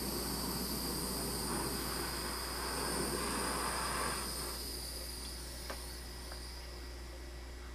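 Small hand torch burning with a steady hiss as it heats wire to soften it, easing off a little after halfway, followed by one faint click.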